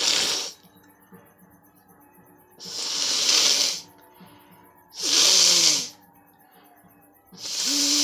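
A woman sneezing repeatedly: four loud, hissy sneezes about two and a half seconds apart, the last two with a falling vocal cry. They are set off by tickling inside her nose with a thin stick.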